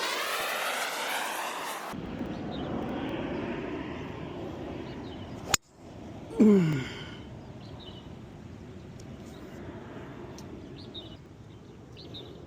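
Wind buffeting the microphone outdoors, a steady low rumbling noise, with one short, loud sound falling in pitch about six and a half seconds in.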